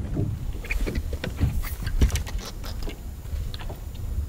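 A freshly caught crappie being swung aboard and unhooked by hand: a quick run of small clicks and taps from the fish, hook and tackle, over a steady low rumble.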